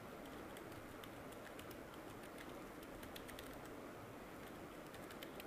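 Faint computer keyboard typing: scattered, irregular keystroke clicks over a low steady hiss.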